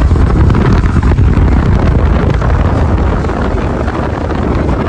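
Heavy wind buffeting the microphone of a phone held out on a moving motorcycle, with the bike's running and road noise underneath.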